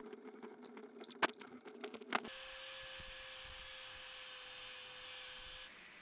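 Hand tap cutting an M10 × 1.25 thread into a metal rod held in a bench vise, giving a few short, sharp metal squeaks in the first two seconds. Then comes a steady hum with a faint even tone, which stops shortly before the end.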